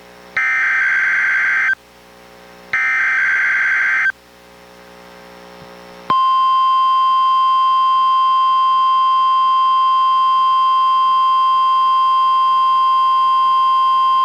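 NOAA Weather Radio SAME data header: two bursts of warbling digital data tones, each a little over a second long, then, about six seconds in, the steady 1050 Hz warning alarm tone of a Required Weekly Test, which starts abruptly and holds. The signal is played from a Reecom R-1630 weather radio.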